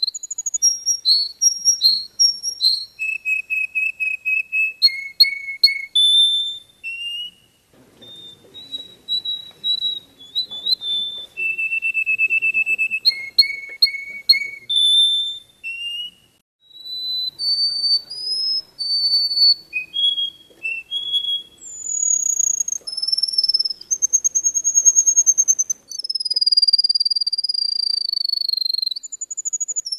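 A songbird singing a long, varied song of clear whistled notes: rapid repeated notes, short trills and long held whistles that slide slightly downward, broken by two brief pauses.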